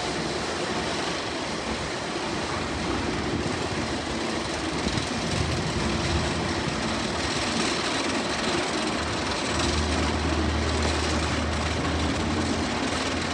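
Roller coaster train rumbling steadily on its track. A low hum joins in about ten seconds in.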